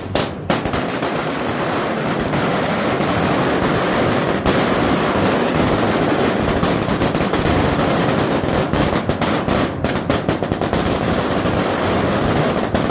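A 1,000-round Striker OG firecracker string going off: a loud, dense, continuous rattle of rapid small bangs.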